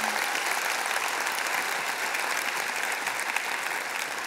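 Audience applauding: dense, steady clapping from a hall full of people, easing off slightly near the end.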